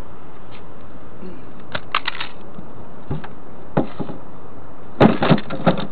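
Scattered sharp clicks and knocks from handling gear over a steady hiss, the loudest cluster of three or four near the end.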